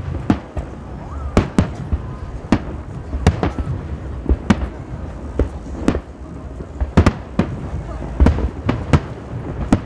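Aerial fireworks shells bursting in quick, irregular succession, about twenty sharp bangs over a low, continuous rumble.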